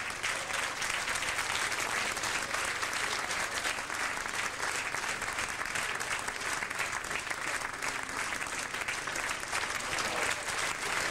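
Audience applauding steadily: many hands clapping in a dense, even spatter with no letup.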